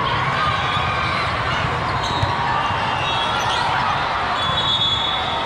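Busy din of a large sports hall with several volleyball matches going at once: many voices, short high squeaks, and ball contacts, with one sharper hit about two seconds in.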